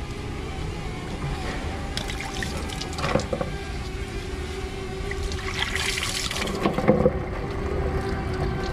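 Engine coolant trickling and splashing out as the hose is pulled off the water pump, with a few knocks and scrapes from the hose and clip being worked loose. The loudest stretch is a second or so of splashing and knocking about six to seven seconds in.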